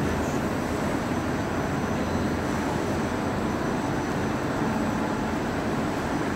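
Steady machinery drone of a running industrial food frying line, its conveyors and equipment running together in an even, unchanging hum.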